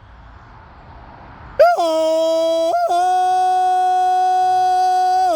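Rooster crowing: one long crow that starts about a second and a half in, rises through a short opening syllable and then holds a long, steady final note.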